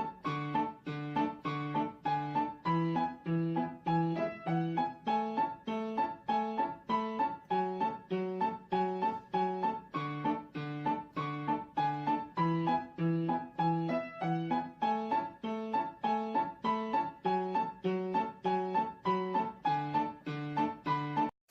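Background piano music: a light, evenly paced melody of short notes, about two a second, that stops just before the end.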